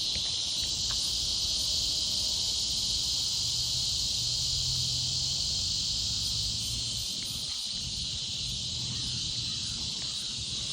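Steady, unbroken high-pitched chorus of insects buzzing in the woods, with a low rumble underneath.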